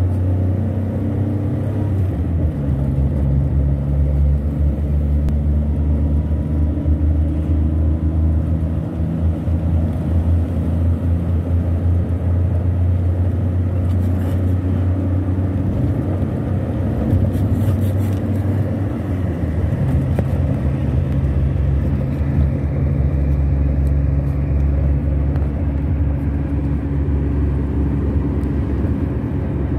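A car driving, with steady low engine and road rumble heard from inside the moving car. The drone shifts in pitch about two seconds in and again around twenty seconds in.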